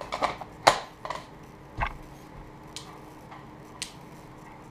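Plastic diffuser and frame of a cabin light fixture being handled and set down on a table: a few sharp clicks and knocks in the first two seconds, the loudest just under a second in, then a few lighter ticks.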